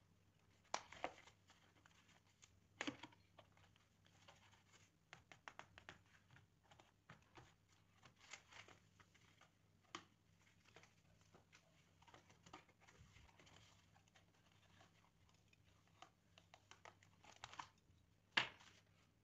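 Faint handling of a sheet of corrugated plastic as it is folded and moved on a work mat: scattered small ticks and rustles, with a few sharper clicks and the loudest one near the end.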